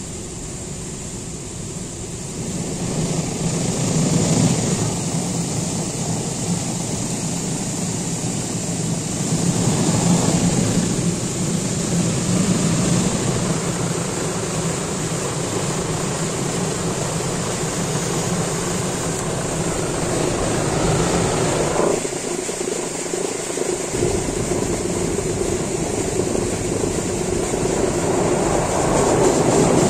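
Automatic car wash heard from inside the car: water and foam spraying and running over the windshield and body, over the steady drone of the wash machinery.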